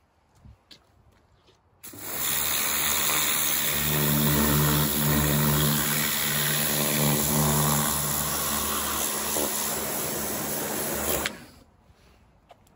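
Kärcher K3 electric pressure washer running with its fixed high-pressure power lance spraying a patio step: a steady motor-pump hum under the hiss of the water jet. It starts about two seconds in and cuts off suddenly near the end.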